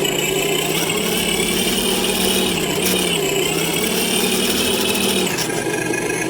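Simulated diesel engine sound from an RC engine sound module, played through a small speaker on an RC crawler, running raised with small rises and dips in pitch, then dropping back toward idle about five seconds in.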